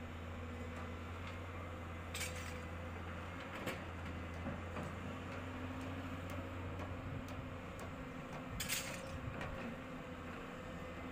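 Excavator's diesel engine running steadily at a low hum, with three sharp metallic clanks, the loudest near the end.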